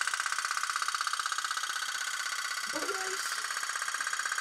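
Tin toy boat's small motor running steadily on bathwater, a fast, even buzzing rattle.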